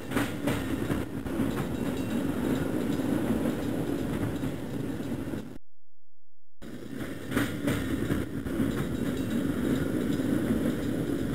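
Sampled subway-train rumble with a steady low hum and a few sharp clacks at its start. The same roughly six-second sample plays twice, with about a second of dead silence between the two plays.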